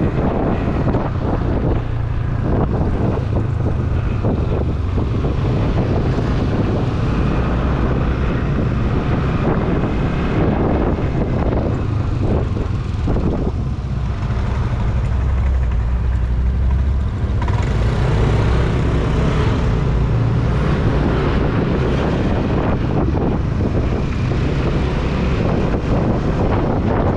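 Steady engine and road noise from a moving motorcycle, under heavy wind rumble on the microphone.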